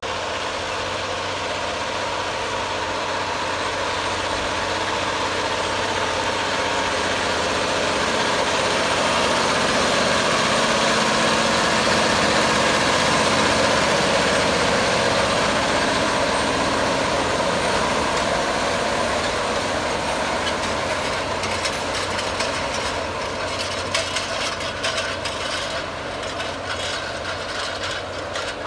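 John Deere 9620RX quad-track tractor's diesel engine running under load as it pulls a Vaderstad TopDown disc cultivator through the soil. It grows louder to a peak about halfway through as it passes close by, then eases off as it moves away, with irregular clicks near the end.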